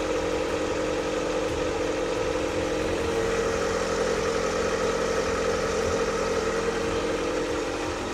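Lada Vesta engine idling steadily at a raised cold-start idle, freshly started.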